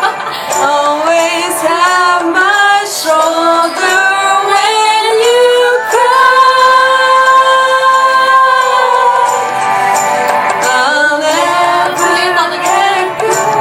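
Pop song with a sung vocal line and no words, holding one long note about halfway through.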